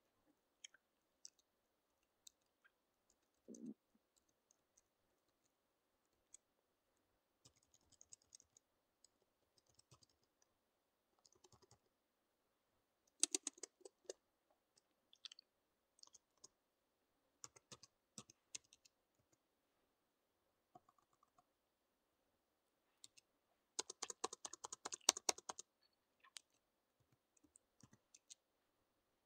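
Laptop keyboard keys being typed on, faint single keystrokes scattered through with a short flurry about halfway and a longer run of fast typing near the end.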